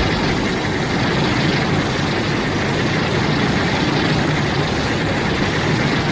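A steady, loud rumbling noise with no clear pitch, the sound effect holding unchanged throughout.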